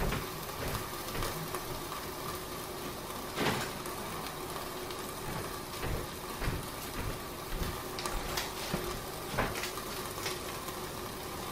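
Steady sizzle of food frying in pans on the stove, with a few light knocks about three seconds in and again near the end.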